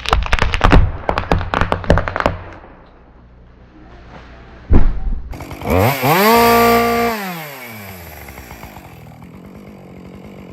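Chainsaw revving up, held at full speed for about a second and a half, then dropping back to idle. Before it, a rapid run of sharp knocks and cracks for the first two seconds, and a single heavy thud almost five seconds in.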